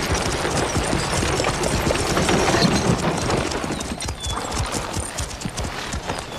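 Horses' hooves clip-clopping, many quick overlapping hoofbeats in a steady run.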